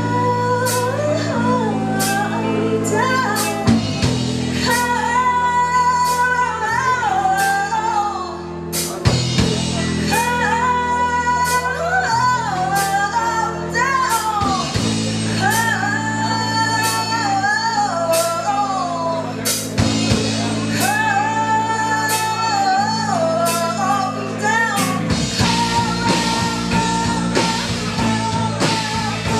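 Live hard-rock band: a woman sings a held melody with wavering, swooping notes over electric guitars played through Marshall amplifiers, bass and a drum kit with regular cymbal strikes. The band thins out briefly about a third of the way in, and near the end the cymbals get busier.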